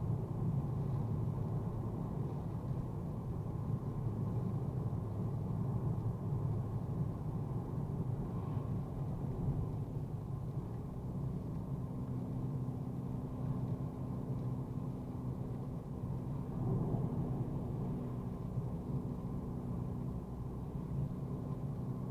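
Mercedes-AMG A35's turbocharged four-cylinder and tyres on a wet road making a steady, muffled low drone while cruising. A faint steady hum joins about halfway through.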